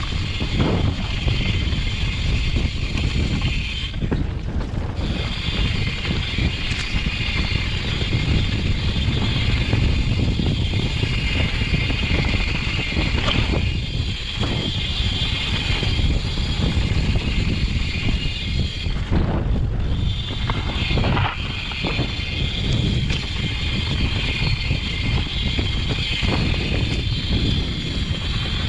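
Mountain bike ridden along a dirt singletrack: wind rumbling on the microphone over tyre and trail noise. A steady high buzz runs over it and drops out briefly twice.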